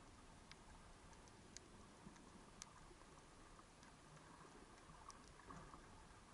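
Near silence of an underwater recording: a faint hiss with a few sharp, scattered clicks.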